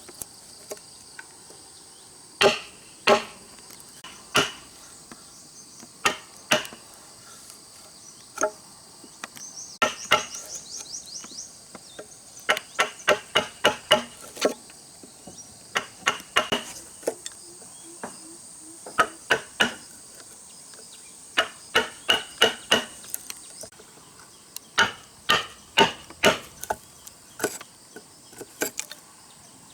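Repeated sharp strikes of a hand tool on wood, irregular at first, then in quick runs of several blows a second. A steady high insect drone runs underneath and stops about two-thirds of the way through.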